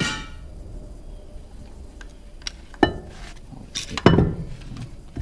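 Metal parts and hand tools clanking during flywheel work on a stump grinder: three sharp metallic clanks with some lighter clicks between them, the first ringing briefly.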